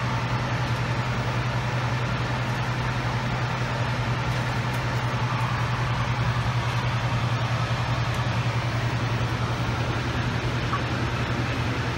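Steady cabin noise on the flight deck of a Bombardier Global Express XRS business jet in high-altitude cruise: an even rush of air over a constant low hum.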